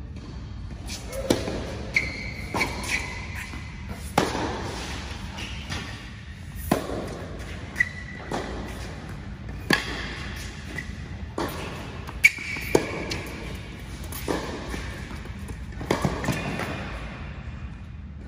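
Tennis rally: a ball struck by rackets and bouncing on a hard court, a sharp hit every one to three seconds, echoing in a large indoor hall.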